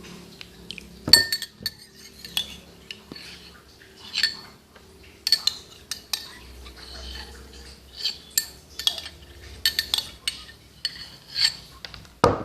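A metal spoon clinking and tapping irregularly against a drinking glass of squeezed lime juice, with a louder knock about a second in and another near the end.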